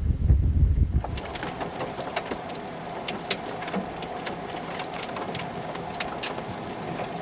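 Wind buffeting the microphone for about the first second. It then gives way to scattered raindrops ticking on a surface over a faint steady tone.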